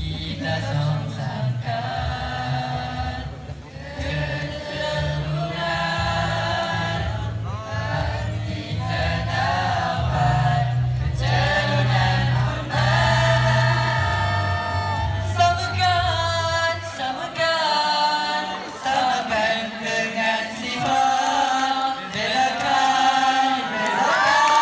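A group of voices singing together over accompanying music, with a steady low backing that drops out about 17 seconds in, leaving mainly the voices.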